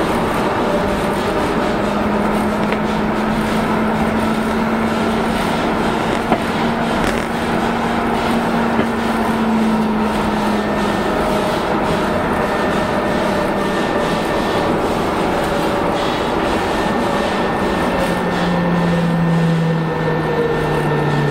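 Milan Metro M5 driverless train running through a tunnel: a steady rumble of wheels on rail with a humming motor tone and a couple of brief knocks. Near the end the hum slides down in pitch as the train slows on its approach to the next station.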